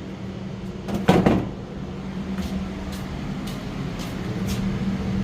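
A single loud knock about a second in, over a steady low hum, followed by faint ticks about twice a second.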